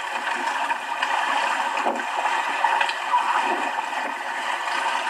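Water gurgling and sloshing in a steady wash.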